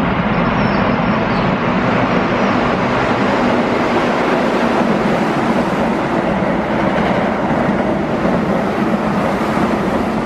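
Keihan electric train running at speed along a station platform, a steady loud noise of wheels on rail that holds throughout and eases just after.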